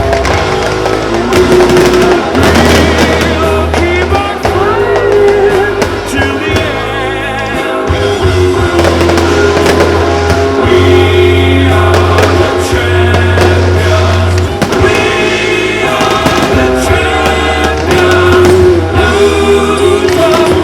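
Music with singing and a steady bass line, with fireworks bangs and crackling going off throughout.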